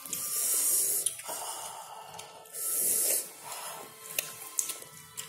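A man's sharp hissing breaths through the teeth: two long hisses, about a second and just under a second, with small mouth clicks between them. It is a reaction to a very sour mouthful of lemon rujak.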